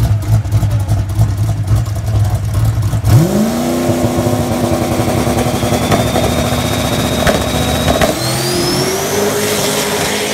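Drag-racing Chevy S-10 pickup's engine: a lumpy idle, then brought up sharply about three seconds in and held at high revs at the starting line. About eight seconds in the revs step up again as the truck launches, with a high whistle climbing in pitch.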